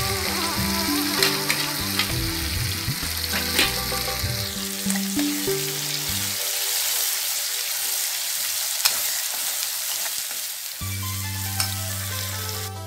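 Wet spice paste sizzling as it fries in hot oil in a pan, stirred with a slotted spatula that clicks against the pan now and then.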